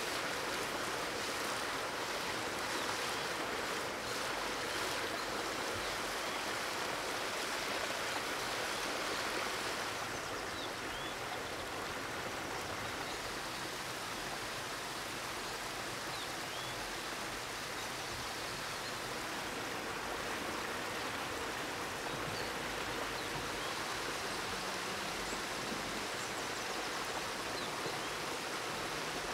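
Eggs and bacon sizzling in a cast-iron skillet over a wood fire: a steady frying hiss, a little softer from about ten seconds in.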